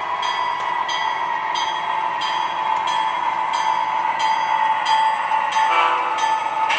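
O-scale model Illinois Central SD40-2 diesel locomotive running slowly on three-rail track: a steady hum with running noise, and a high ringing that repeats about every two-thirds of a second. A louder sound comes in near the end.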